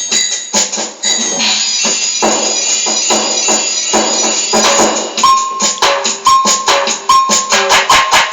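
Amateur noisy jam: hand percussion with jingles, struck and shaken in a loose, uneven rhythm. From about five seconds in, a keyboard plays short repeated notes over it.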